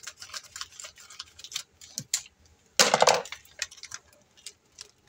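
Frozen cheese and its wrapping being handled and pulled apart: a quick run of sharp clicks and crackles, then one louder half-second burst of crackling about three seconds in, then a few scattered ticks.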